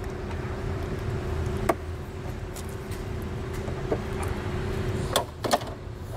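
Hand snips cutting through the plastic honeycomb grille of a car's front bumper fascia: a few sharp cracks as the plastic gives, the loudest two near the end.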